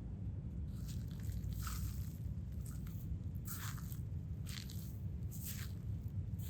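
Slime being squeezed and pressed by hand, giving short crunchy squishes about once a second over a low steady hum.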